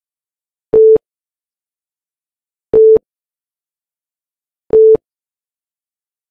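Countdown timer beeping: three short beeps at one steady mid pitch, evenly spaced two seconds apart, one for each number as the count runs down.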